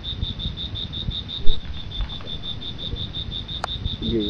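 Cricket chirping steadily, one high pulsing note about six times a second, over a low rumble, with a loud thump about one and a half seconds in.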